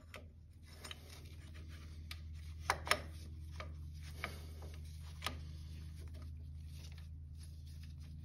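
Hand work on an ATV's front hub and brake caliper: light metal clicks and rubbing as parts and tools are handled, with two sharper clicks about three seconds in and another a little after five seconds, over a steady low hum.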